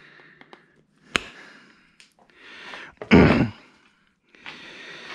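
A sharp click about a second in, then a man sighing heavily, one loud breath out a little after the middle followed by a longer, softer exhale.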